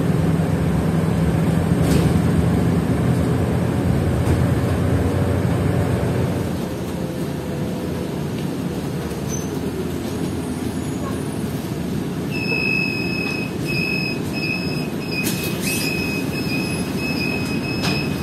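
A Hino RK8 coach's diesel engine running with a steady low hum, which drops in level about six seconds in. From about twelve seconds a high electronic beep repeats in short pulses.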